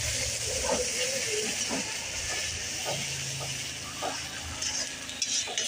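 Onion paste frying in hot oil in an iron kadai, a steady sizzle, with a few scrapes of a steel spatula near the end as it is stirred.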